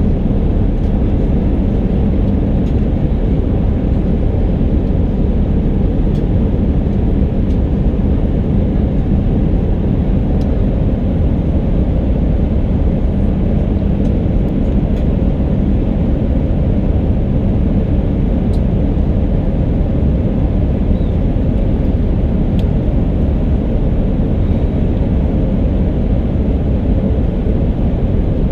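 Steady low rumble inside the cabin of an Airbus A319 airliner, the sound of its jet engines and the airframe heard from a window seat, with a faint steady hum under it.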